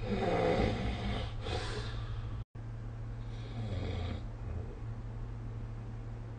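A sleeping person snoring: a loud snore in the first two seconds, then a fainter one about three to five seconds in, over a steady low hum. A split-second silent gap cuts the sound about halfway through.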